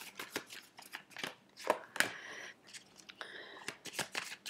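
A deck of tarot cards being shuffled and handled: a run of quick light clicks from card edges, with two longer rustles about two and three seconds in.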